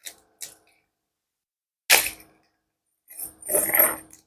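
Handling noises from unpacking metal Monopoly tokens: two faint clicks, a sharp rustle or knock about two seconds in, then a longer rustle with faint metallic ringing near the end.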